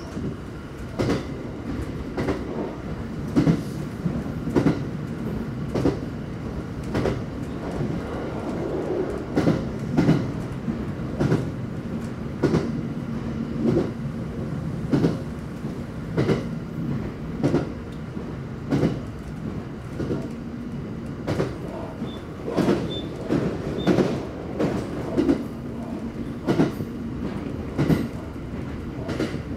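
JR West 227 series 500 electric train running along the line, heard from inside the car: wheels knocking over rail joints in a regular clickety-clack, roughly one pair of knocks a second, over a steady low motor hum.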